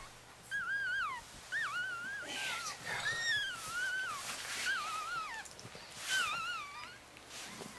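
Mother Chihuahua whining: a run of short, high, wavering whines, about one a second, as she wants back up onto the bed with her puppies.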